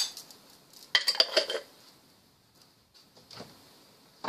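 Metal spoon clinking against a saucepan and kitchenware: one sharp clink right at the start, then a short run of clinks about a second in.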